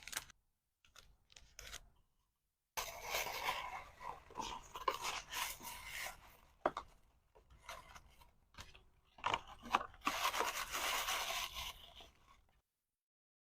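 Packaging being handled by hand: a few short clicks, then a long stretch of rustling, scraping and crinkling with scattered sharp ticks, which stops suddenly near the end.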